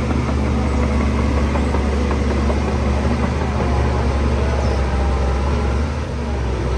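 Heavy diesel engine of earthmoving machinery running steadily under load, with a deep low hum.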